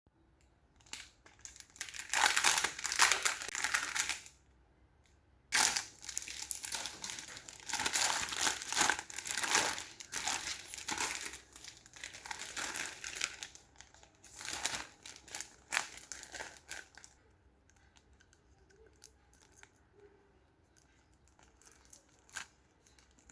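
A plastic balloon package crinkling and tearing as it is handled and opened, in long bursts, then faint scattered handling clicks for the last few seconds.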